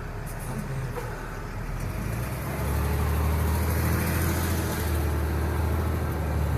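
Delivery truck's engine and road noise while driving: a steady low engine hum that grows louder about two and a half seconds in and holds.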